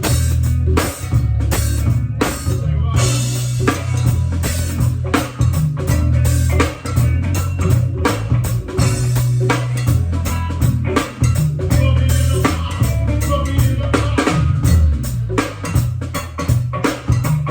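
A live band playing: a heavy bass line under a steady drum-kit beat, with guitar.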